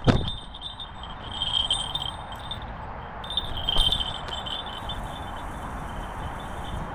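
Small falconry bells on a hawk jingling in two short spells, over a steady low rumble.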